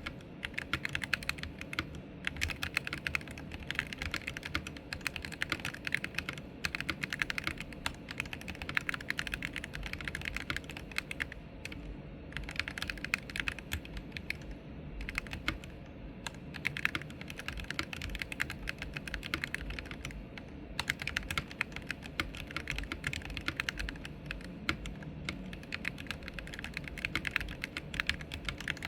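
Fast continuous typing on a Royal Kludge RK68 HE Hall-effect (magnetic switch) keyboard: a rapid run of key clacks with a few short pauses.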